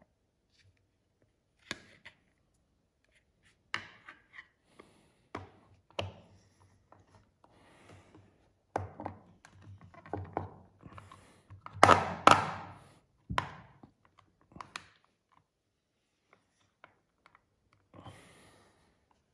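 A plastic Banpresto figure being pressed and fitted onto its round plastic display base. Scattered clicks and taps mix with handling and rubbing noise, busiest through the middle, with the loudest scraping cluster about two-thirds of the way through.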